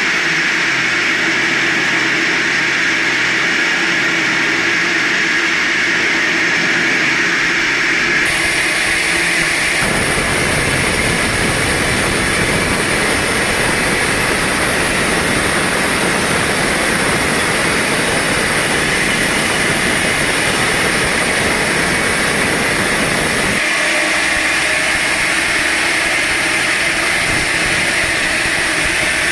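A sawmill running steadily and sawing hard jamaloi wood: a constant loud mechanical whine with a hum under it, turning fuller and deeper from about ten seconds in until a few seconds before the end.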